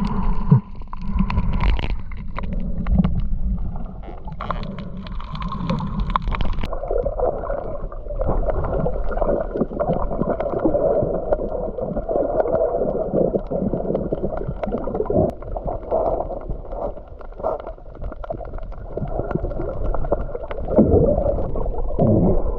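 Splashing water and wind, then about seven seconds in a sudden switch to muffled underwater gurgling and bubbling as the microphone goes under the surface.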